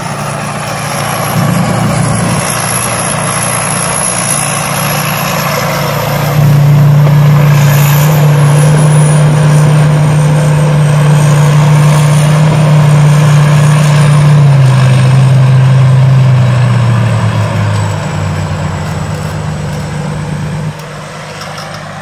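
Engine of a Thai Seng Yont tracked rice combine harvester running as the machine travels across the field, with a thin high whine above it. The engine gets louder about six seconds in and eases back down in steps in the last few seconds.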